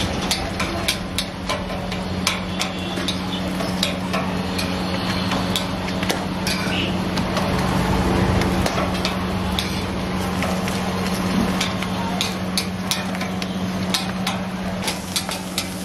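Metal spatula clinking and scraping on a flat steel griddle as parottas are turned, with irregular sharp clinks over a steady low hum.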